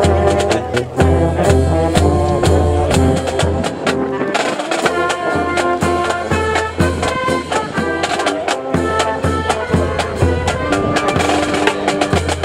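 Marching band playing: brass (sousaphone, trombones, saxophone) over snare drum strokes and a steady low bass beat. The low bass drops out briefly about four seconds in.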